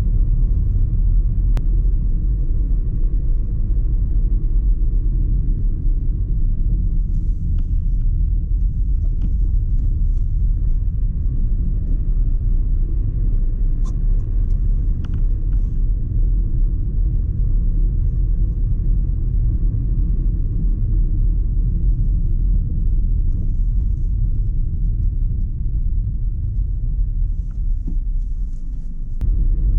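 A car driving along a road, giving a steady low rumble of road and engine noise.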